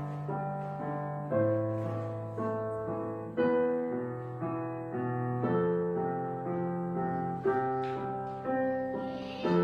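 Background piano music: slow, sustained chords and notes, a new chord struck about once a second.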